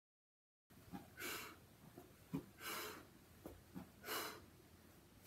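A person breathing out hard in three short puffs about a second and a half apart, in time with jack-knife sit-ups, with a few light knocks in between. It starts just under a second in.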